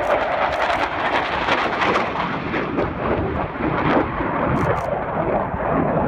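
Panavia Tornado's twin RB199 turbofan engines, a loud continuous jet rumble with crackle.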